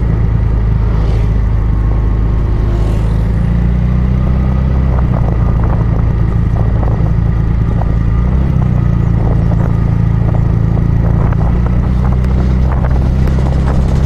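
Motorcycle engine running steadily while riding on a road, with wind and road noise over it; the engine note shifts about halfway through.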